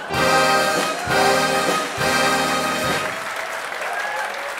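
A brass band playing a Tusch, the short carnival fanfare after a punchline: three loud held chords of about a second each. Applause runs under them and carries on after the last chord ends.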